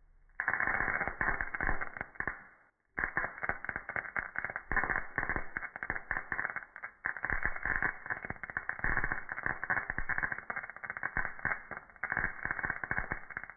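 Dense irregular crackling and sputtering of electrical arcing: a steel bolt makes poor contact across the two thick output cables of a modified microwave-oven transformer, and the low-voltage, very high current arcs across the bad contact. The audio is slowed with the slow-motion footage, so it sounds dull and deep, with no high end. It breaks off briefly about three seconds in.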